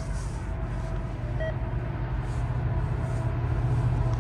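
Diesel locomotives of a CN freight train rumbling low and steadily, slowly growing louder. A brief short tone sounds about a second and a half in.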